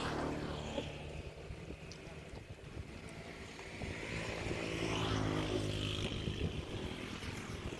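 A motor vehicle's engine passing by, growing louder to a peak about five seconds in and then fading.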